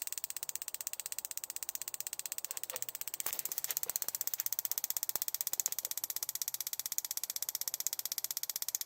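Spark plug tester firing used spark plugs: a rapid, evenly spaced ticking of sparks, with a few louder snaps here and there.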